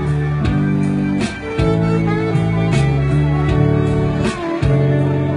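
Saxophone music: a melody of long held notes over an accompaniment with a steady beat.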